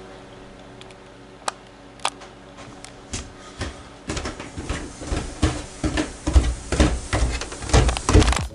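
Footsteps coming down a flight of stairs: a couple of faint clicks first, then heavy thuds from about three seconds in, getting louder and closer toward the end.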